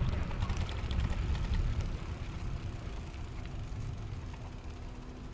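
Low rumble of wind on the microphone and tyre noise from a moving e-bike, easing off gradually.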